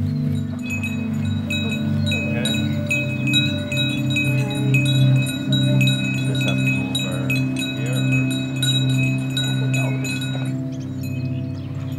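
Cowbells on grazing cattle clanking and ringing irregularly, over a steady low hum. The bells stop about ten and a half seconds in.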